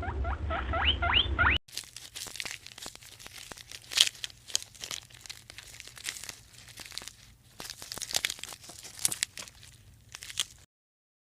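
A run of quick rising squeaks, then, after an abrupt change, a long stretch of irregular crackling and crunching clicks that stops suddenly.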